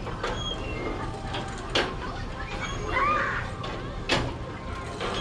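Sharp metallic clacks from a hand-powered kiddie spinning ride, about four of them a second or two apart, over children's voices. A brief rising-and-falling squeal comes about three seconds in.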